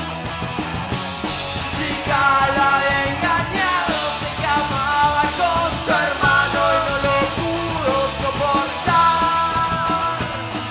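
A rock band playing live: a male voice singing over electric guitars and a drum kit.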